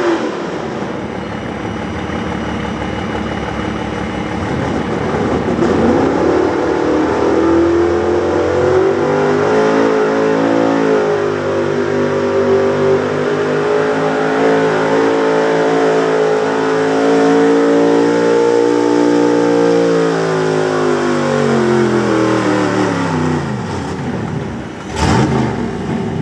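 Small-block V8 pulling truck running at full throttle while dragging a weight-transfer sled. The revs climb over the first several seconds and hold high for a long stretch. Near the end they fall away as the truck bogs down and the pull ends, followed by a short loud burst.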